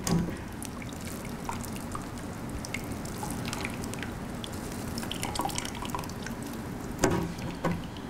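Whey dripping and trickling into a plastic container as a cheesecloth bundle of fresh paneer curds is squeezed, with a few louder drips about seven seconds in.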